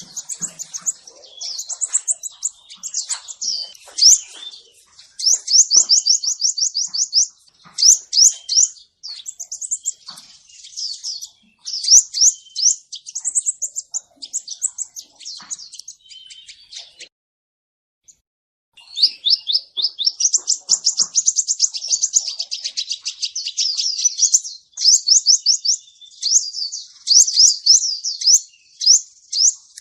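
Male kolibri ninja (crimson sunbird) singing: fast runs of high, thin chirps and rapid trills, broken by a pause of about two seconds past the middle. This is a recording used as a call to lure the bird.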